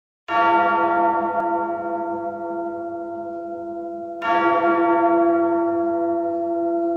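A large bell struck twice, about four seconds apart, each stroke ringing on and slowly fading. It is the recorded opening of a heavy rock soundtrack, which follows straight after.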